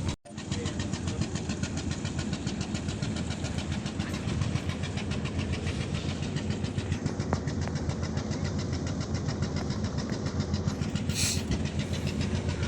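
An engine running steadily at an even speed, with a fast, regular beat.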